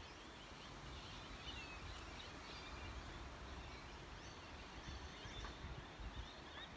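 Faint chirping of small birds, many short calls throughout, over a low steady rumble.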